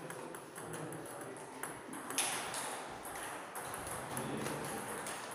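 Table tennis rally: the ball clicking sharply off the table and the players' bats in a quick, uneven series of hits, with one louder hit about two seconds in.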